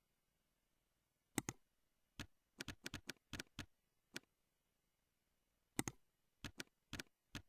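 About a dozen sharp computer mouse and keyboard clicks in small clusters, some in quick pairs, with a pause of about a second and a half after the middle, over a near-silent background.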